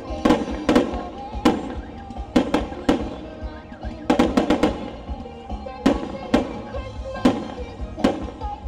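Fireworks shells bursting in sharp bangs roughly every half second to second, with a quick run of several bangs about four seconds in, over music playing steadily.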